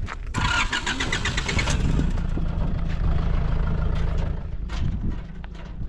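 Zamyad pickup truck's engine being started: the starter cranks for about a second and a half, then the engine catches and settles into a steady idle.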